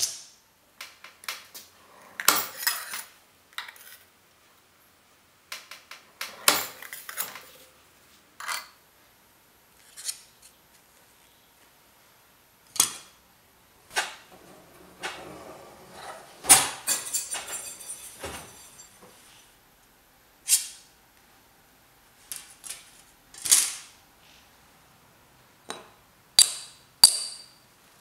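A run of separate sharp metallic clanks, snips and scrapes as thin sheet steel is cut on a bench shear and the cut pieces are handled, with a longer scraping, rattling stretch in the middle.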